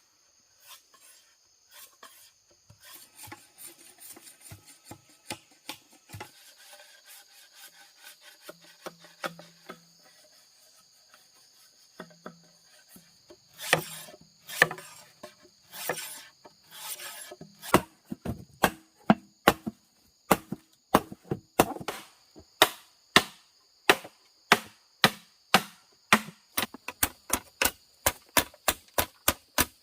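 Repeated strikes on wood. After a stretch of lighter clicks and handling noise, a few heavier knocks come, then from a little past halfway a fast, regular run of sharp blows, about two a second. Insects keep up a steady high buzz throughout.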